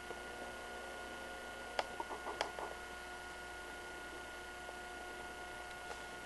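Faint steady hiss and electrical hum, with a few small clicks about two seconds in.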